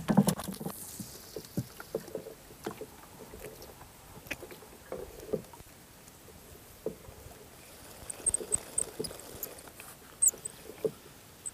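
Scattered light knocks and clicks of fishing rod and tackle being handled aboard a small wooden boat, with a few short high chirps about eight seconds in.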